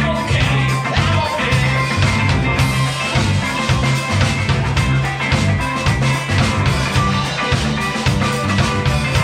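Live rock band playing an instrumental passage: electric guitar over drum kit and a pulsing bass line, with a steady beat.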